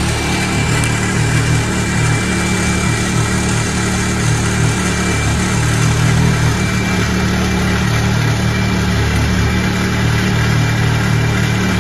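Side-by-side UTV engine idling steadily, with a faint steady high-pitched tone over it.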